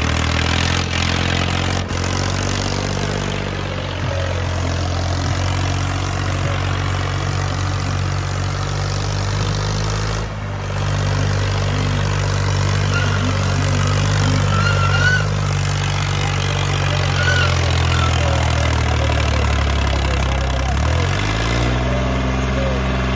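Ghazi tractor's diesel engine running hard under load while pulling a disc harrow through soil. The engine note holds steady, sags briefly about ten seconds in, and climbs as the revs rise near the end.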